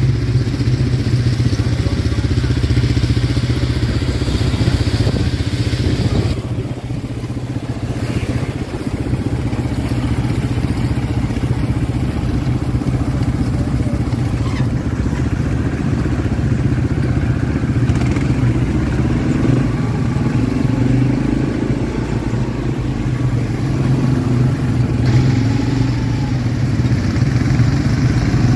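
ATV engine running steadily as the quad is ridden along a trail. The engine eases off briefly about six seconds in, then picks up again.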